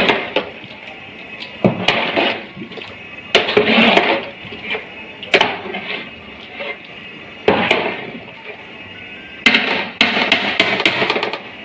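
Repeated bursts of kitchen clatter and scraping, about six in all, each starting sharply and lasting a second or so, as from utensils or dishes being worked in a bowl.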